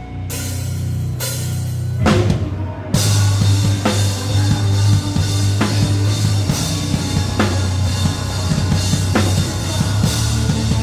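Rock drum kit played with the band: cymbal swells in the first second or so, a fill about two seconds in, then full-kit playing with bass drum and regular crash accents over a sustained bass line.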